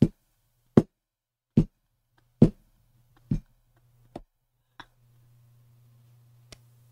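Stifled laughter from a woman at the microphone: short breathy puffs, about one a second, growing fainter.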